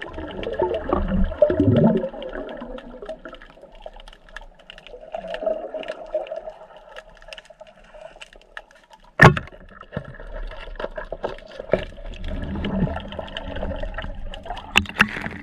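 Water noise and bubbling heard underwater, loudest at the start as the diver goes under. About nine seconds in comes a single sharp crack: a wooden band-powered speargun firing at a fish.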